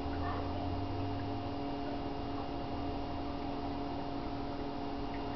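Steady electrical hum of reef-aquarium equipment, holding several fixed tones, with a deeper hum added for the first second and a half.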